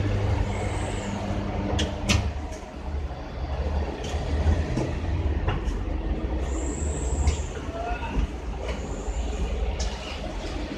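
Electric motorcycle tyre-changing machine at work: a low motor hum that drops about two seconds in, with scattered sharp clicks and knocks and a few short high squeaks.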